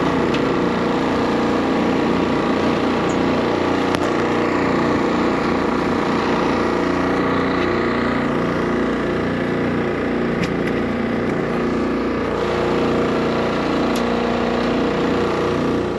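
Small engine on a bowfishing boat running steadily at an even speed, a constant hum with a slight waver in pitch.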